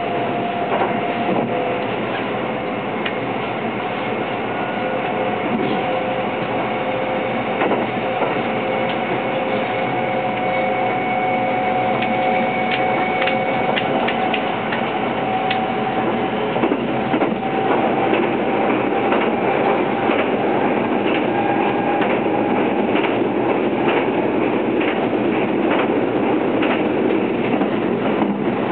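Running sound inside the cabin of a Kintetsu 22600 series 'Ace' limited express electric train: a steady rumble of wheels on rail. A motor whine slowly rises in pitch as the train gathers speed, with scattered clicks from the wheels.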